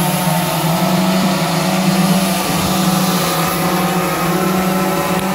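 Aerigon heavy-lift cinema drone hovering, its propellers and motors giving a steady hum with several held tones.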